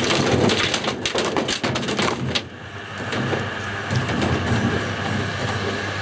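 Broken pieces of an old VCR and 12-volt SLA batteries clattering and banging around inside the spinning drum of a Fisher & Paykel top-loading washing machine, driven dry by its 42-pole Smart Drive motor. Dense impacts for the first couple of seconds, then a steadier rattling over a low hum.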